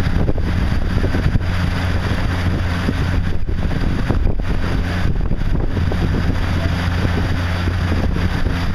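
Motorboat engine running steadily at towing speed, a constant low drone heard from aboard the towing boat, with wind buffeting the microphone.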